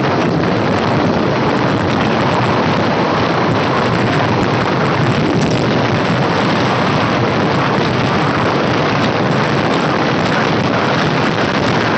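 Loud, steady wind rushing over the microphone, mixed with the road and engine noise of a vehicle moving at speed along a highway.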